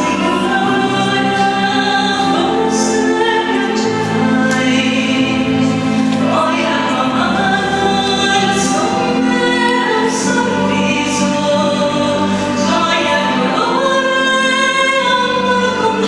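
A mixed choir singing a slow sacred piece in long held chords, with the voices' sung consonants landing together every few seconds.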